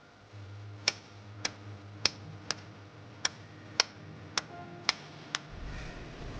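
A run of about nine sharp clicks, evenly spaced about half a second apart, over a faint low hum; a low rumble starts near the end.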